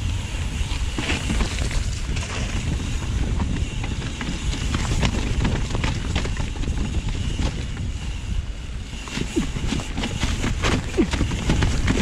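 Trek Remedy mountain bike riding down a wet, rocky trail: a steady rumble of wind on the microphone and tyres on the ground, with frequent knocks and rattles of the bike over rocks and roots.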